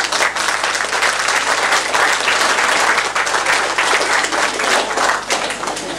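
A crowd applauding: dense, steady clapping that thins toward scattered claps near the end.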